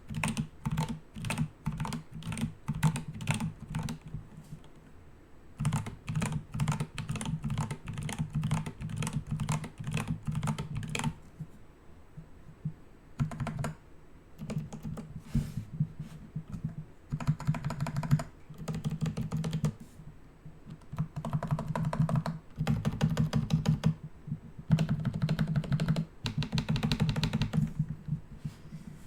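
Typing on a computer keyboard: runs of quick keystrokes in bursts, broken by short pauses of a second or two.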